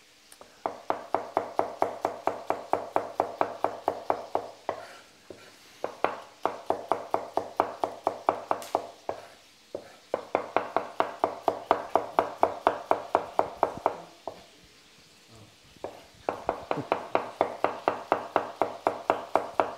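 Chef's knife slicing shallots on a wooden chopping board: quick, even strokes tapping the board at about five a second, in four runs broken by short pauses.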